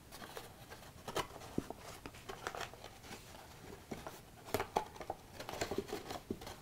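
Cardstock paper model being handled and pressed together by hand: faint rustling and light crinkling with scattered small taps, the clearest about four and a half seconds in.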